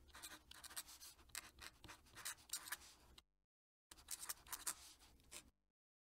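Fountain pen nib scratching across paper as a cursive signature is written, faint, in quick strokes. The writing comes in two runs, with a short pause a little over three seconds in, and stops about a second before the end.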